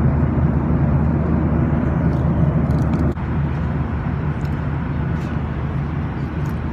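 Steady cabin noise of a Boeing 737 jet airliner in flight: the roar of engines and rushing air with a low hum underneath. It drops a little quieter about three seconds in.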